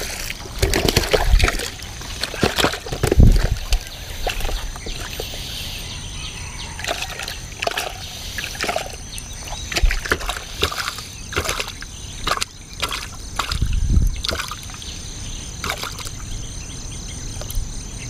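Water sloshing and splashing in a plastic tub as a freshly caught sebarau (hampala barb) is put into it, with irregular knocks of the tub and fish being handled.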